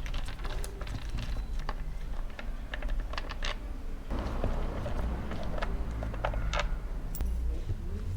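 Irregular light clicks and taps of hand tools and bolts being worked on a motorcycle's air box cover.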